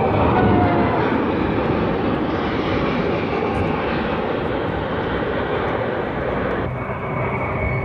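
Four-engine C-17 Globemaster III jet transport flying low overhead, its turbofan engines giving a loud, steady roar. Near the end the sound changes abruptly to a steadier drone with a thin high whine.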